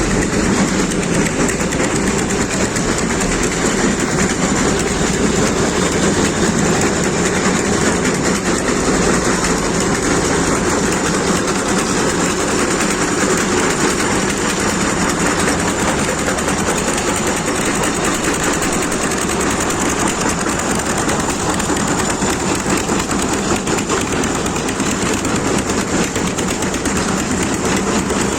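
Heavy road-construction machinery running steadily with a fast, even rattle.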